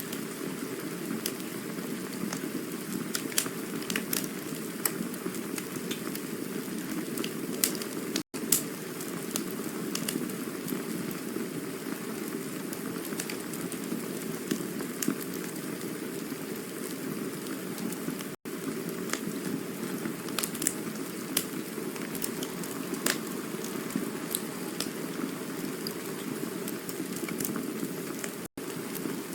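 Campfire burning: a steady low rush of flames with frequent sharp crackles and pops of burning wood scattered through it. Three very short dropouts, about ten seconds apart, break the sound.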